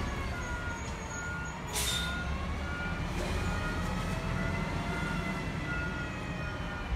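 Backup alarm on an Autocar ACX McNeilus Atlantic front-loader garbage truck beeping evenly, a little under twice a second, as the truck reverses, over its diesel engine running. A short air hiss comes about two seconds in.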